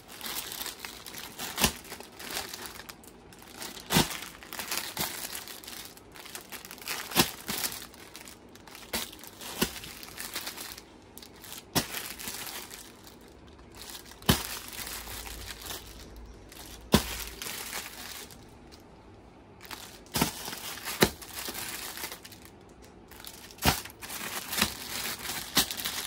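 Plastic packaging of bed sheets crinkling and rustling as the packs are handled, with scattered sharp crackles throughout.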